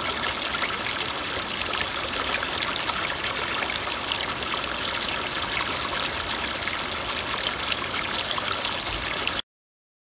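Running water pouring into a tub and bubbling around submerged salt-cured venison legs as the salt is soaked out of them: a steady rushing splash that cuts off abruptly near the end.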